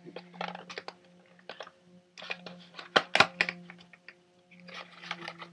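Small package being opened by hand: packaging crinkling and clicking in several short clusters of quick clicks, over a steady low hum.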